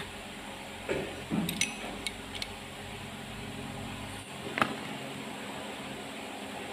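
Metal hand tools clinking and tapping against a Perkins four-cylinder diesel engine block several times, some clinks with a short metallic ring, and a sharp click about four and a half seconds in, over a steady workshop hum.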